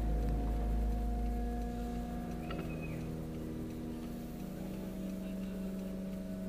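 Car engine humming steadily, heard inside the cabin as the car pulls through a turn, with a brief high squeak about two and a half seconds in.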